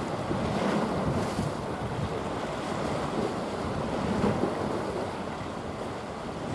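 Wind buffeting the microphone over a steady rush of sea water, with no distinct engine tone.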